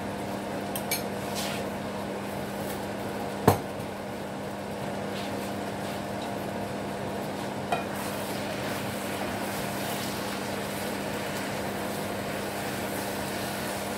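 Stir-fried flat rice noodles sizzling in a frying pan over a steady low hum, with one sharp knock about three and a half seconds in and a spatula stirring through the noodles near the end.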